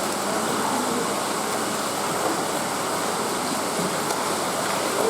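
Steady rush of running water with faint low sounds from the room.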